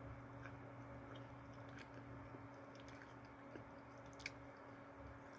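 Faint chewing of a chewy caramel chocolate-chip cookie, with a few small, scattered mouth clicks over a low steady hum.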